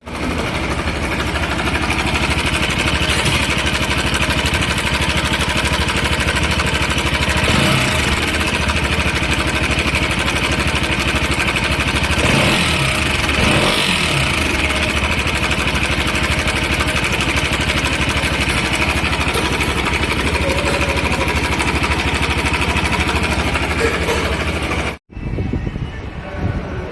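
Bajaj Pulsar RS200's single-cylinder engine running with an abnormal engine noise, revved briefly a couple of times. The noise is typical of the timing chain problem the mechanic is working on. The sound cuts off abruptly near the end.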